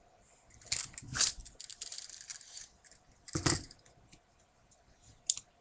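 Handling noise from a multitool and its leather belt case: two sharp clicks about a second in, then rustling, then a heavier knock at about three and a half seconds, with a small click near the end.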